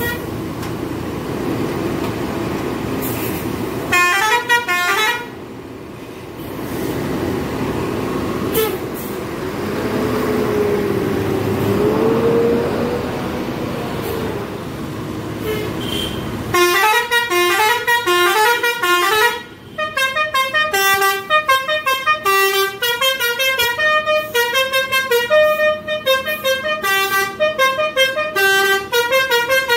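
Basuri telolet musical horn on a bus playing a fast melody of short stepped notes through the second half. Before it there is steady engine and traffic noise, with a brief burst of horn notes about four seconds in.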